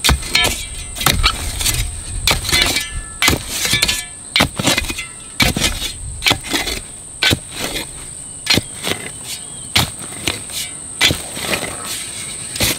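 Shovel digging into soil: a run of irregular stabs and scrapes, one or two a second.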